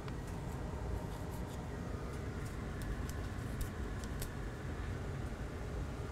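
Steady low background hum with several light clicks and taps from a MacBook Air laptop being handled and its lid opened.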